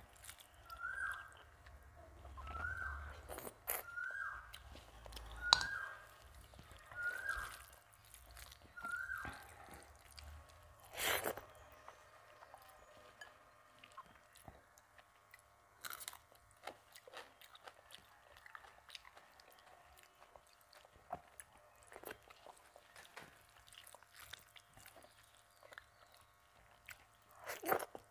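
A person eating rice mixed with dal by hand: close chewing with soft clicks and wet squelches, and a sharper click about eleven seconds in and again near the end. During the first ten seconds a short chirp repeats about once a second behind it.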